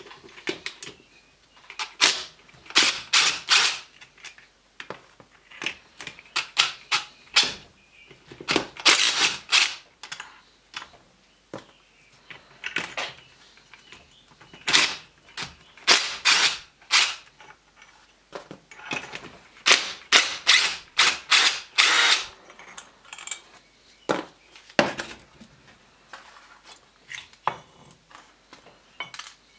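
Cordless impact driver run in many short bursts, backing out the bolts that hold the cast adapter plate on a triplex pressure-washer pump. A few lighter clicks and knocks follow near the end.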